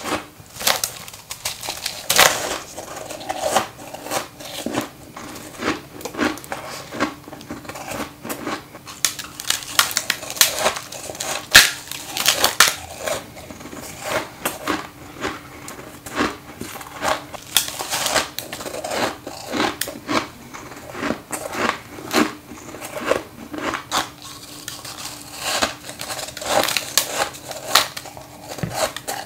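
Close-miked bites into crisp frozen frost ice built up in a freezer, crunching and crackling again and again, with a faint steady hum underneath.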